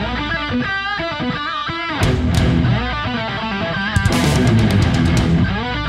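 Rock outro music with a bending electric-guitar lead over bass, with a few sharp drum hits.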